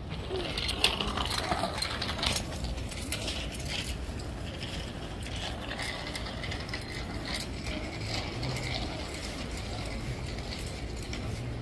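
Kids' bicycle and kick scooter rolling on wet pavement: scattered light mechanical clicks and rattles over a steady low outdoor rumble.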